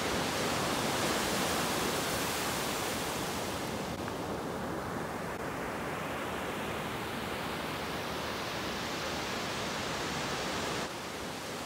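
Ocean surf breaking and washing up the beach: a steady rushing noise whose high hiss dims about three and a half seconds in and slowly comes back.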